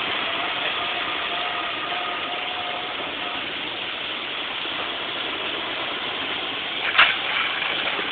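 A lorry fire burning fiercely: a steady rushing noise, with a single sharp crack about seven seconds in.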